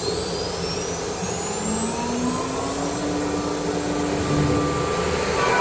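CNC router machine running: a steady machine noise with a thin whine that rises slowly in pitch over the first few seconds, as of a spindle spinning up.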